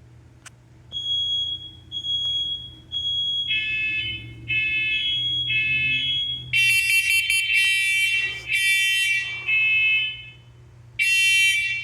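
Interconnected First Alert smoke alarms in test mode sounding the three-beep smoke evacuation pattern. Three beeps of one high tone are followed by three beeps with more tones stacked as further alarms join in. About six and a half seconds in, a much louder group of three starts, and after a pause another group follows.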